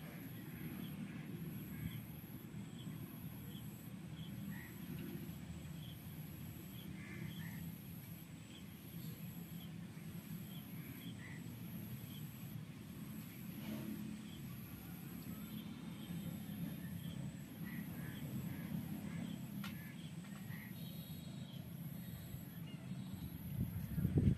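Outdoor ambience: a steady low rumble with scattered short bird chirps, and a faint high-pitched pulse repeating about once a second.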